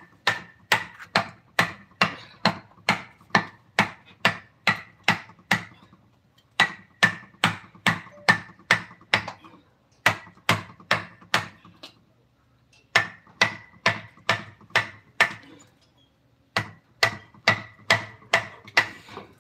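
Steady rhythmic strikes of a mallet on a wood carving chisel, about two or three blows a second, each with a faint metallic ring. The blows come in runs of a few seconds, broken by brief pauses.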